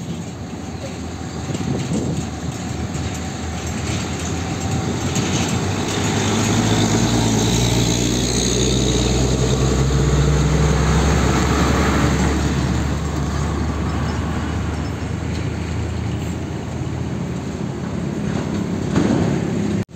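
Diesel engines of heavy cargo trucks passing close by, with a steady engine drone. It builds to its loudest about halfway through as one truck goes past, then eases off as the truck pulls away, over the noise of other road traffic.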